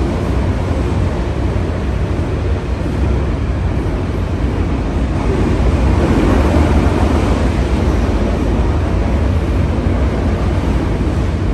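Steady low rumble of a passing train, with wind noise on the microphone; it swells a little about halfway through.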